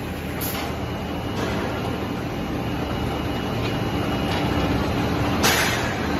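Forging-line machinery running steadily, a motor-driven roller conveyor and heating furnace, with a constant low hum as a steel disc blank is carried into the furnace. Short sudden bursts come about half a second and a second and a half in, and a louder, hissing burst comes near the end.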